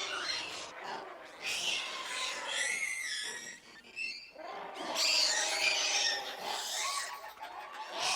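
Monkeys calling: high, wavering squeals in several bursts, with a brief lull about three and a half seconds in.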